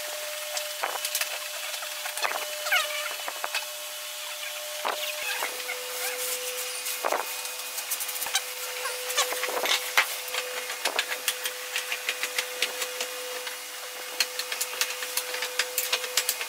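Plastic glue spreader scraping and squeaking across wooden slats while glue is worked over them, with scattered light clicks and a steady thin hum in the background that drops slightly in pitch about five seconds in.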